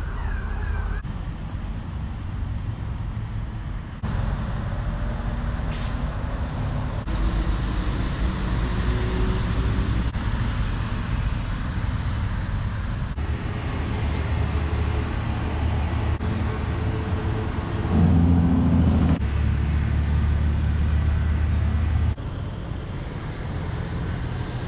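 Road and engine noise of a moving vehicle, a steady low rumble, in several short clips cut together so the sound changes abruptly every few seconds.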